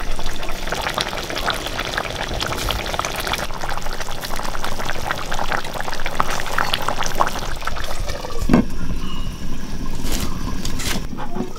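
Fish curry bubbling at a boil in a pan, a dense crackle of small pops. A brief stir or scrape comes about eight and a half seconds in.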